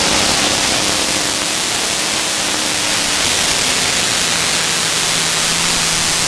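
Modified pulling tractors running at full power under load, heard as a loud, steady hiss of engine noise with a faint hum underneath. The hum changes pitch about halfway through as one tractor gives way to the next.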